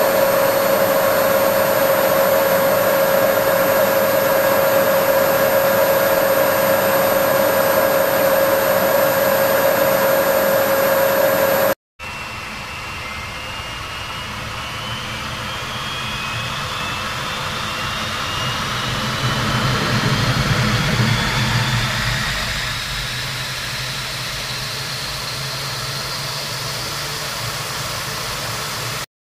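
Jet engine running with a steady high whine over a dense hiss. About twelve seconds in it cuts out briefly, and a second jet engine sound follows: its whine rises slowly in pitch while a low rumble swells and then fades back.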